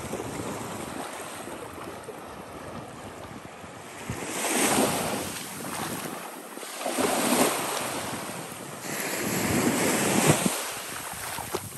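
Small Gulf of Mexico waves washing up onto a sandy beach: a steady surf wash that swells three times, with a short surge a third of the way in, another past halfway, and a longer one near the end.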